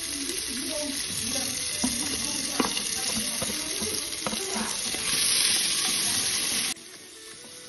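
Chopped vegetables sizzling in hot oil as they are stir-fried in an aluminium pressure cooker pot, with a spatula knocking and scraping against the pot a few times. The sizzle grows louder about five seconds in as diced carrots go in, then drops off abruptly near the end.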